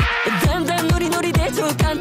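Pop song with an electronic dance beat: a kick drum on every beat, a little over two beats a second, under a melodic line.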